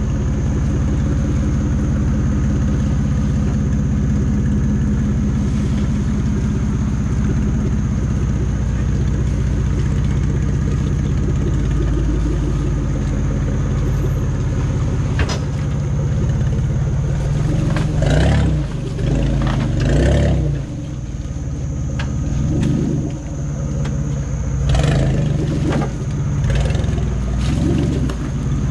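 A 4WD's engine running steadily, then revved up and down several times in the second half, with a sharp click about fifteen seconds in.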